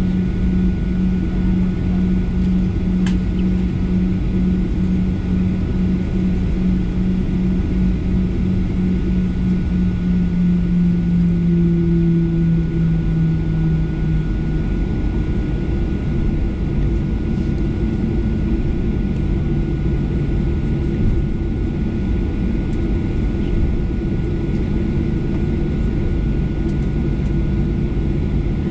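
Boeing 737-800's CFM56-7B jet engines at taxi power, heard from inside the cabin: a steady drone over a low rumble, with a faint high whine. About halfway through, the low hum shifts to a different pitch.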